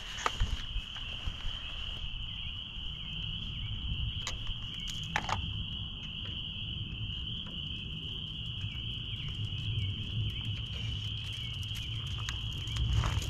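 Insects trilling steadily in one unbroken high tone, with a low rumble beneath and a few faint clicks of handling around four and five seconds in.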